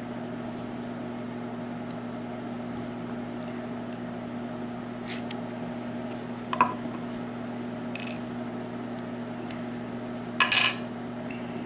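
A few small metallic clicks and taps as the parts of a disassembled Yale pin-tumbler rim cylinder are handled, the sharpest about six and a half seconds in and a short cluster near the end, over a steady low hum.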